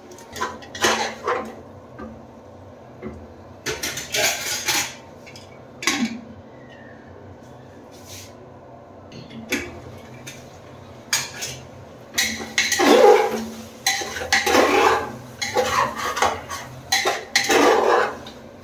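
Metal spoon clinking and scraping against the inside of an aluminium pressure cooker while a thick curry is stirred. It comes in short scattered bursts at first, then becomes dense and loudest in the last six seconds or so.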